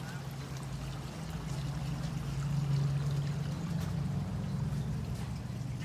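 Steady running, splashing water, growing a little louder about two seconds in.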